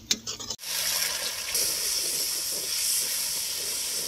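A few short clicks and knocks at the wood fire, then sliced onions frying in oil in a steel wok: a steady, loud sizzle.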